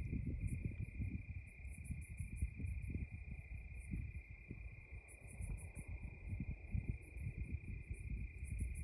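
Crickets trilling steadily at night, with faster, higher-pitched insect pulsing coming and going, over an irregular low rumble of wind buffeting the microphone.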